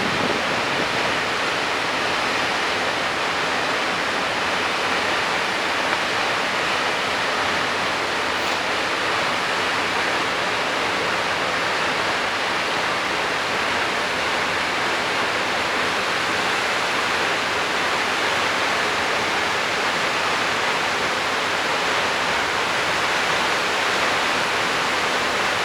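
A tall waterfall pouring and splashing into its pool as a steady, loud rush of water.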